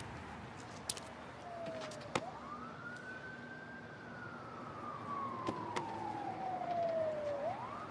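A faint siren wailing: its pitch sweeps up about two seconds in, falls slowly for about five seconds, then starts rising again near the end. A few short clicks sound over it.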